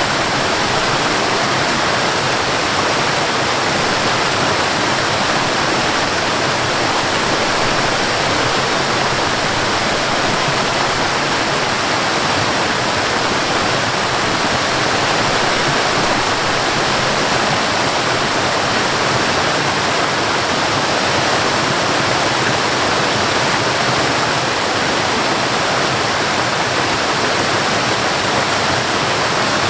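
Waterfall: water falling steadily, a loud even rush with no breaks or changes.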